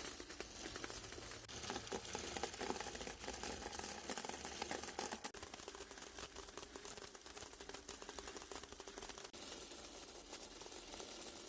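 Electric coin counting machine running with a load of quarters spinning around inside it, a steady dense clatter of coins clicking through the mechanism.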